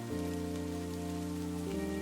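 Steady rain falling, from a rain sound effect, over soft background music of sustained chords. The chord changes just after the start and again near the end.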